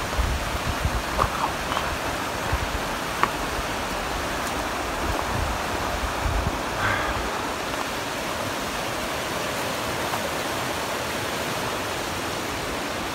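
Steady rushing of a shallow river running over rocks, with a few short low bumps in the first several seconds.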